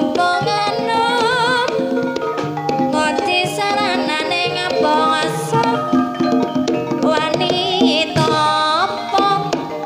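Live jaranan dangdut music for an ebeg dance: hand drums beating a busy rhythm under sustained tuned instruments, with a voice singing a wavering, ornamented melody line.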